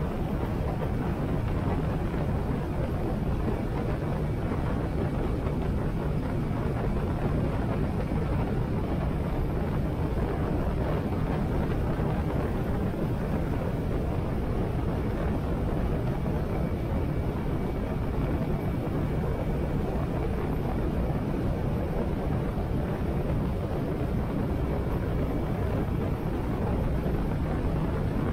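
Harley-Davidson Sportster 883's air-cooled V-twin engine running steadily on the move, mixed with constant wind rush over a helmet-mounted camera's microphone. The sound stays even throughout, with no shifts or revving.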